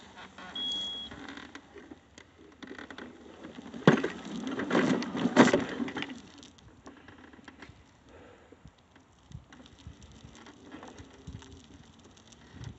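A single short high electronic beep about half a second in, a low-battery warning from the recording device. About four seconds in comes roughly two seconds of rustling, crackling noise, the loudest sound, then faint scattered rustles.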